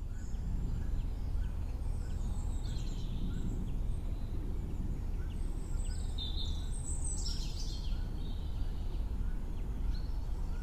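Outdoor ambience: a steady low rumble with small birds chirping and calling now and then, most clearly about three, six and seven seconds in.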